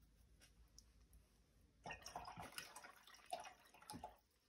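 Watercolour brush rinsed in a jar of water: about two seconds of swishing and splashing with a few light taps, starting about two seconds in.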